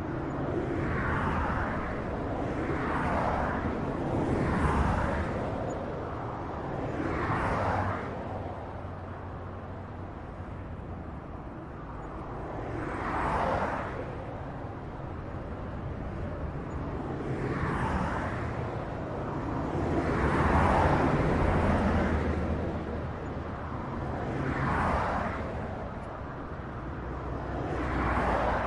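Highway traffic: vehicles passing one after another every few seconds, each swelling and fading as it goes by, over a steady low rumble of tyres and engines.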